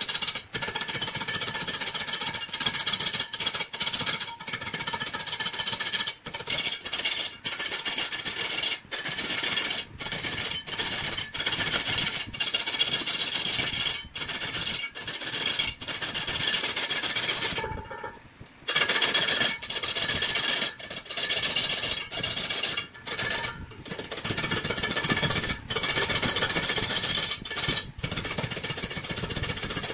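Tool scraping and rasping against wood spinning on a large wood lathe, a continuous harsh scrape broken by many sudden short cut-offs, with a brief lull about eighteen seconds in.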